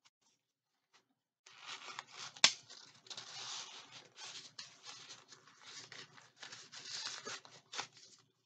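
Packaging rustling, crinkling and tearing as a folded reusable shopping bag is unwrapped by hand, with one sharp snap about two and a half seconds in.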